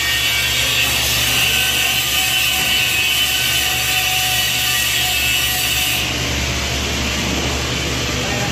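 Angle grinder running steadily against steel, grinding weld spatter off a welded test coupon.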